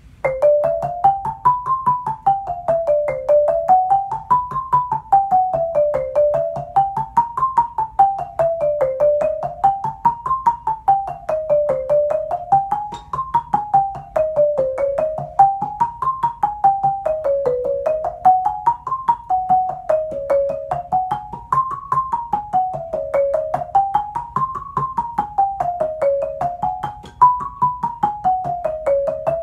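Marimba played with yarn mallets: quick runs of notes climbing and falling again in a repeating wave about every three seconds, starting suddenly at the beginning.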